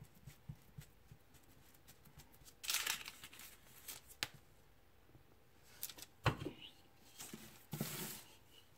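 Kitchen handling sounds: soft taps of fingers pressing shortcrust pastry into a fluted tart tin, then two bursts of baking-paper rustling, about three seconds in and near the end, with a sharp knock just after six seconds.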